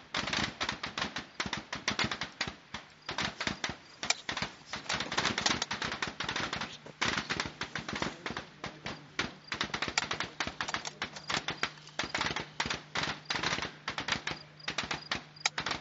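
Rifle fire from many rifles along a long firing line, a dense, irregular crackle of shots several per second, with a faint low steady hum joining about three seconds in.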